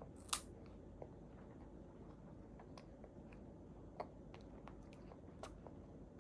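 A baby eating: faint chewing and mouth sounds with scattered small clicks and crunches, the loudest about a third of a second in and another about four seconds in.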